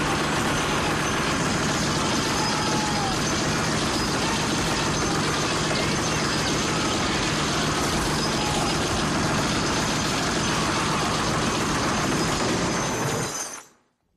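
Browning .50 calibre heavy machine gun firing one long continuous burst, the shots too rapid to count, cutting off suddenly near the end.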